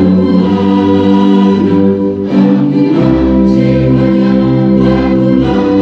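Music: a choir singing a song with instrumental accompaniment, loud and continuous.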